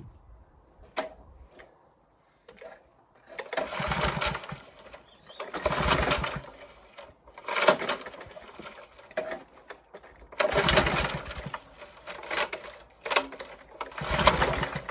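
Briggs & Stratton lawnmower engine being pull-started several times, each pull a rattling burst of about a second that dies away without the engine catching. The owner expects the fault to be the carburettor diaphragm and gasket.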